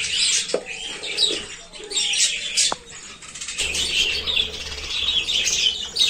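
A flock of budgerigars chattering, a dense run of short high chirps and warbles, with wings flapping as birds fly between perches.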